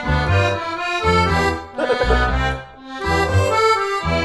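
Background music: an instrumental passage with a melody over a moving bass line.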